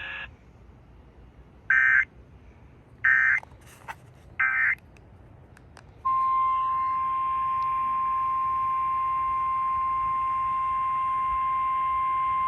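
Emergency Alert System SAME header: three short bursts of warbling data tones, each under half a second and about a second apart. About six seconds in, the steady single-pitch 1050 Hz alert tone starts and holds.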